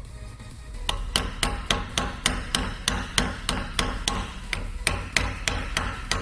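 Hammer blows on an old differential bearing race used as a seal driver, tapping the pinion oil seal into a Honda S2000 differential housing: about twenty sharp strikes at a steady three to four a second, starting about a second in.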